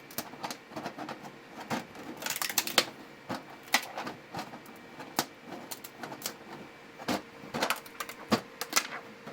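Irregular small plastic clicks and snaps from a 3D-printed PETG articulated skeleton dragon as its fine jointed parts are gently worked free and flexed.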